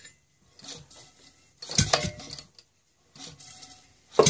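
Maytag Model 72 twin-cylinder two-stroke engine being cranked by hand at its kick-start pedal and flywheel: four clanking strokes about a second apart, turning over without catching, just after being primed with gas squirted into the mixer.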